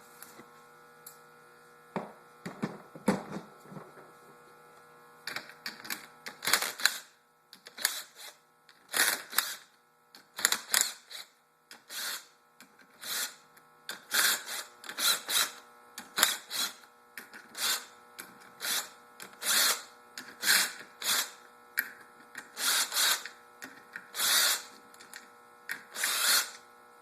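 Hand socket ratchet clicking in short repeated strokes, about one a second, loosening the 10 mm clutch bolts of a two-stroke dirt-bike engine. A few low clunks come before the strokes begin.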